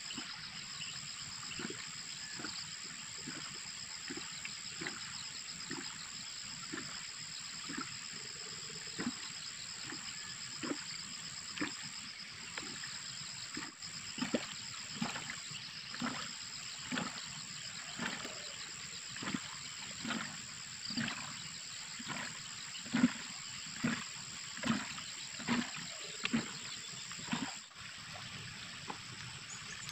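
Steady high chirring of insects, with soft, regular taps about once a second as a farmer works along cabbage rows applying fertilizer from a bucket at each plant; the taps grow louder in the second half.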